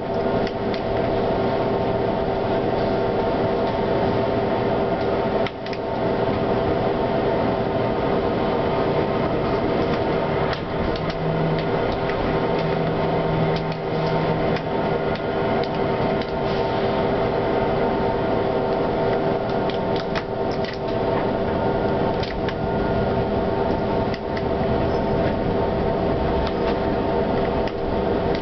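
Tram running along its track, heard from inside the car: a steady hum with noise underneath and occasional short clicks and knocks from the wheels on the rails.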